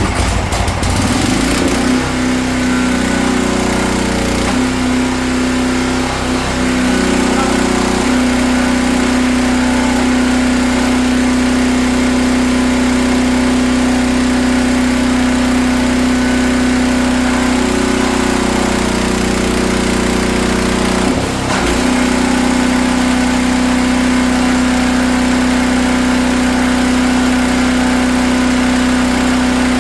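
Gas engine and pump of a 4400 psi DeWalt pressure washer running loud and steady. Its note shifts a few times a few seconds in and again around twenty seconds in, with a brief dip just after, as the pump's pressure changes. The freshly repaired pump is building pressure again.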